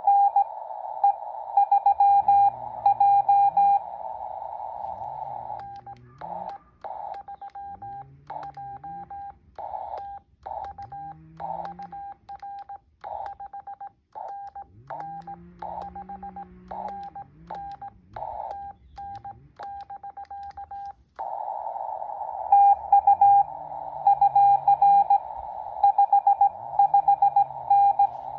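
Morse code on an amateur radio transceiver: one steady tone keyed in dots and dashes. At the start and again in the last quarter it comes through the receiver with band hiss. In the middle stretch the hiss drops out and the keying sounds clean, typical of the operator's own transmit sidetone while sending on the key.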